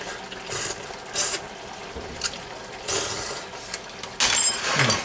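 Thick spicy jjamppong sauce bubbling in a wok as a spatula stirs and scrapes through it, in several short bursts, the loudest near the end.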